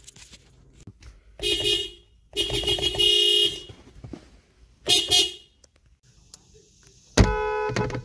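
Car horns sounding. A short beep, then a longer blast of about a second, then another short beep near five seconds. A different, louder horn starts blasting at about seven seconds.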